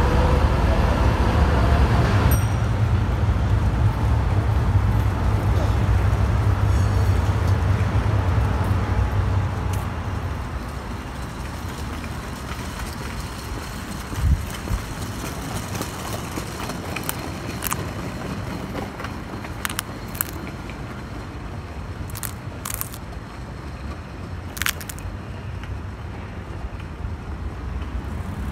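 City street ambience: a steady low rumble of traffic with a tram passing for the first ten seconds or so, then quieter street noise with scattered clicks.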